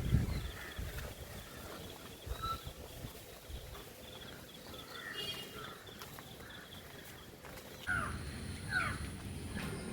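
Rural outdoor ambience: scattered bird chirps over a faint, high, pulsing trill, with two quick sliding calls near the end.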